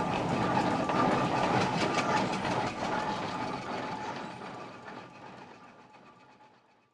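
1910 steam traction engine driving off, its exhaust chuffing and its motion clanking in a quick, steady run. It fades away over the last few seconds to nothing.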